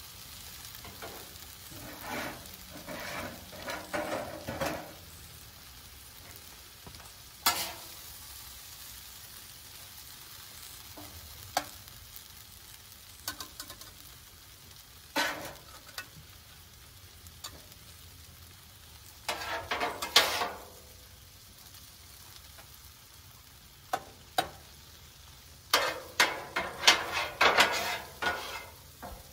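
Chicken and udon noodles sizzling steadily on a Blackstone flat-top gas griddle, with metal spatulas scraping and clacking against the steel top in short bursts, most thickly near the end.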